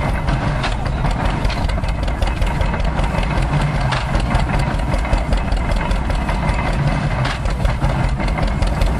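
An old tractor engine running steadily as it drives an antique belt-driven stationary straw baler, with a few knocks from the machinery.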